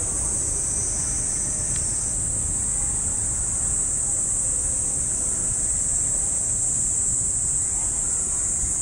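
Cicadas buzzing steadily in a high-pitched summer chorus over an even low rumble.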